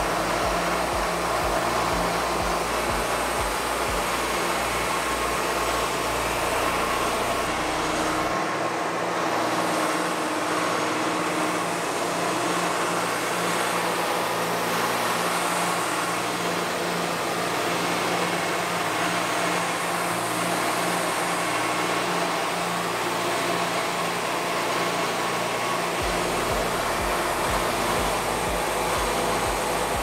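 Wood-Mizer LT40 Wide band sawmill running, its engine and band blade sawing through a monkey pod log with a steady, even noise.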